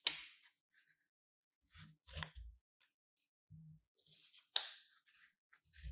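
Steel scissors snipping through green paper: three crisp cuts about two seconds apart, the first and last loudest. Soft low knocks come in between.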